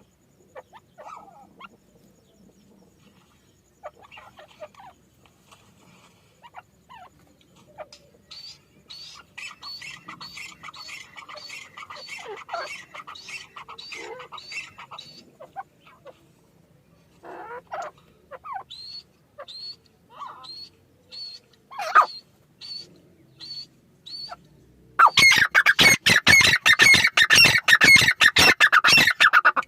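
Francolins (teetar) calling: scattered short chirps, then rapid runs of high chirps. Near the end comes a much louder, fast run of harsh repeated calls.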